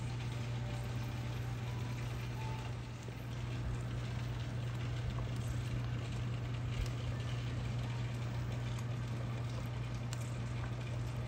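Pot of mung bean stew with okra and greens boiling on the stove: a steady bubbling and hiss, under a constant low hum.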